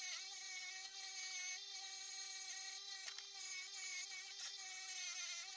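Bench grinder running with a wire wheel, a steady motor hum under a high hiss as the wire bristles scrub a steel tube, the vise's drive screw thread guard, clean of rust. The pitch dips slightly near the start and the end.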